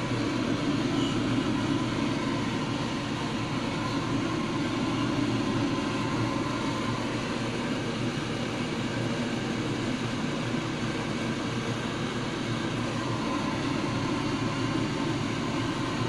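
Steady whirring hum and hiss of a running fan, with a few faint steady tones in it.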